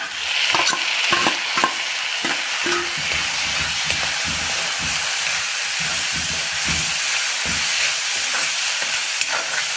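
Chopped tomatoes dropped into hot oil and onions in an iron cheenachatti (wok), sizzling up at once, then frying with a steady sizzle while a steel ladle scrapes and clinks against the pan in repeated stirring strokes.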